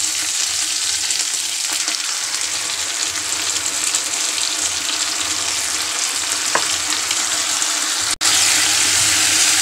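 Onions, green capsicum and green onion stir-frying in hot oil in a non-stick pan on high heat: a steady sizzle, stirred with a plastic spatula. The sizzle drops out for an instant a little after eight seconds in.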